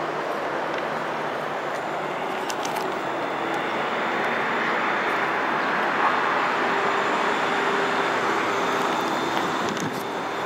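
Steady road traffic noise: a continuous even rush, with a faint engine hum joining in about two-thirds of the way through.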